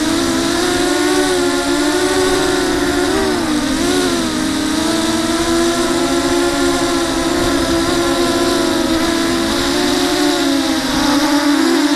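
Brushless motors and propellers of a TenTech Thug 250 FPV quadcopter, recorded by its onboard camera, whining steadily, the pitch wavering up and down with the throttle and dipping briefly about four seconds in, over a steady hiss of wind.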